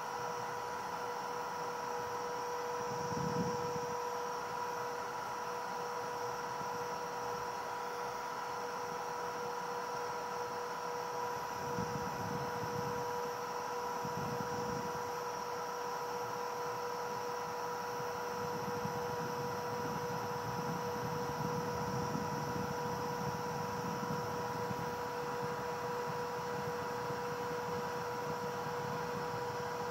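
CNC PCB milling machine's spindle running with a steady high whine as its engraving bit mills isolation traces in a copper-clad board, at a fast 4000 mm/min feed. A low rumble swells about three seconds in and again from about twelve seconds on, under a constant hiss.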